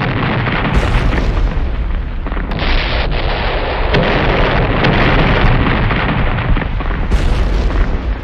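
Explosion sound effect: a loud, continuous blast with a deep rumble, carrying on for several seconds, with a few sharp cracks in it and brightening in the upper range about a second in and again near the end.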